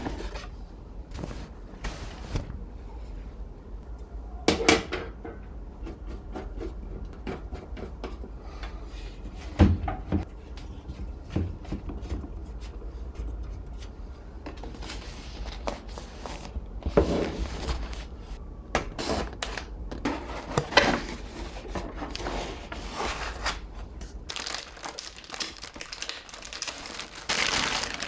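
Computer parts being handled and fitted together: irregular plastic and metal clicks, light knocks and crinkling rustles, over a steady low hum.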